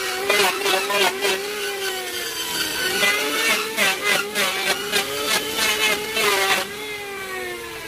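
Angle grinder with a sanding disc sanding a wooden chair leg: a steady motor whine broken by repeated rasping bursts as the disc bites the wood. Near the end the rasping stops and the whine falls away as the motor winds down.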